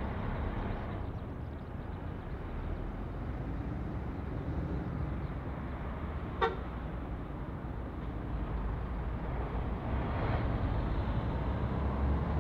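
Steady low rumble of a landing jet airliner's engines, swelling slightly near the end, with one brief toot about halfway through.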